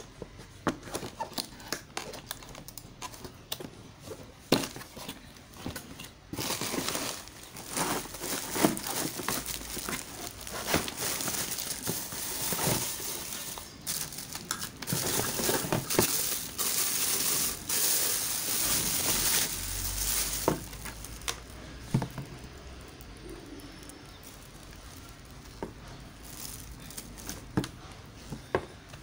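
Plastic packaging crinkling and rustling as a boxed hair dryer and its cord are unwrapped by hand, with scattered clicks and knocks from the cardboard box. The rustling is densest through the middle and thins to light handling near the end.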